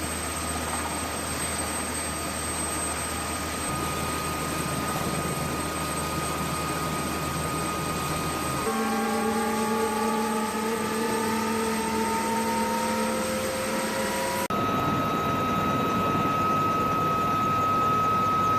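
UH-1Y Venom helicopter's turbine engines and rotor running steadily, in three sections joined by abrupt cuts. In the middle section, from just before halfway to about three-quarters of the way through, the turbine whine slowly rises in pitch.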